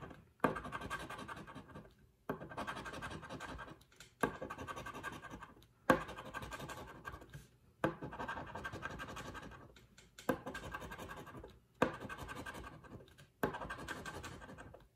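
A scratch-off lottery ticket's coating being scratched off with the edge of a round plastic disc. There are about eight scratching passes, each about a second and a half long, starting sharply and fading, with short pauses between.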